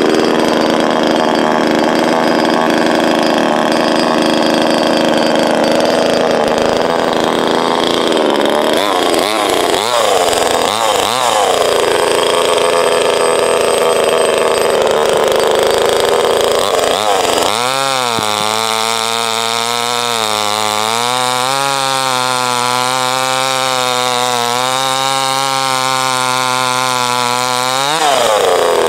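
NEOTEC NCS 2500 25cc two-stroke chainsaw running steadily, blipped a few times around eight to eleven seconds in. From about seventeen seconds it is held at full throttle cutting through a log, its pitch wavering slightly as the chain bites. The pitch falls away as the throttle is released near the end.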